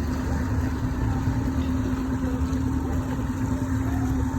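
Boat engine running steadily: an even, unchanging drone with a low rumble beneath it.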